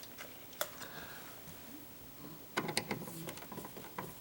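Small clicks and rattles of hand work at a wall light switch: one sharp click about half a second in, then a quick run of clicks from about two and a half seconds on.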